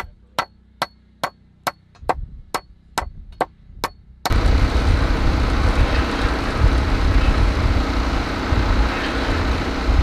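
Hammer driving a nail into a wooden board with quick, even strikes, about ten blows at roughly two and a half a second. A little over four seconds in, the hammering stops suddenly and a loud, steady rushing rumble takes over.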